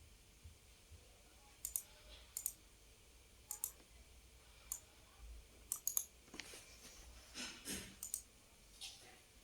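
Computer mouse clicking: faint, sharp clicks at irregular intervals, several in quick pairs, with a soft rustle about seven seconds in.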